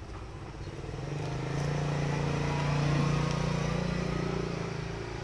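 A motor vehicle's engine passing by, its low hum swelling to its loudest about three seconds in and then fading.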